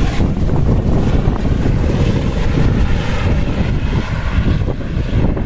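Light helicopter flying away overhead: its rotor and turbine engine running loud and steady.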